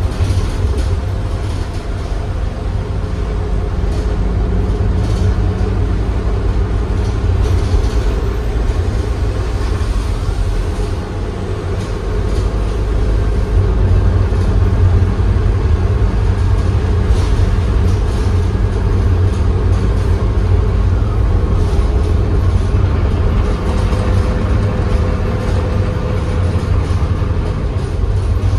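Transit bus under way, heard from inside its passenger cabin: a steady low engine and road rumble, with a few faint clicks over it.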